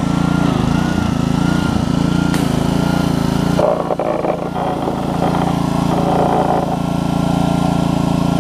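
Honda GCV160 single-cylinder engine on a pressure washer running steadily. A few seconds in, the wand's trigger is pulled and a high-pressure water jet hisses against the concrete, the pump no longer binding up.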